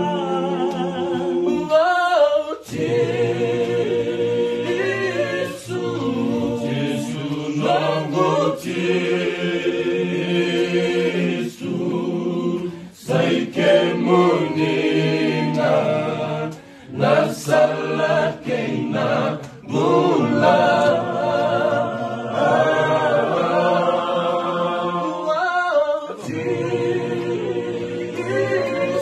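A group of men singing a Fijian gospel song unaccompanied, several voices together holding long notes, with short pauses between phrases.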